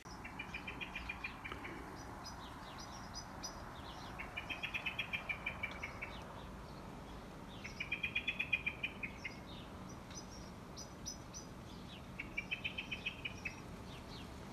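A songbird singing outdoors: a rapid trill of short, quickly repeated notes, given four times about every four seconds, with higher chips in between, over a steady background hum.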